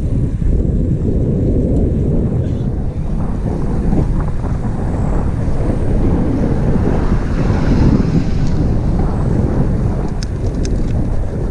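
Wind buffeting the microphone while riding a road bicycle, a steady low rumble, with a few faint clicks near the end.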